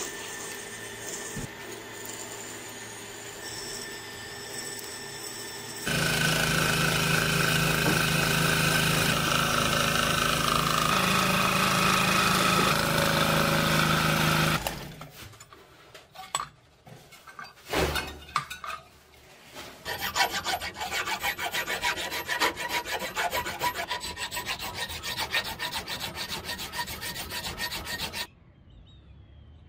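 A drill bit boring into a brass plate, then from about six seconds in a scroll saw's fine blade cutting through the brass with a steady motor hum, stopping about fifteen seconds in. After a few knocks, a hand file rasps back and forth over the brass piece held in a vise in rapid strokes, ending abruptly near the end.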